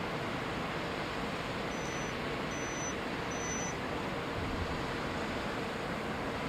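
Steady rushing railway station noise as a distant ICE T high-speed electric train pulls away, with three short high-pitched chirps about two to four seconds in.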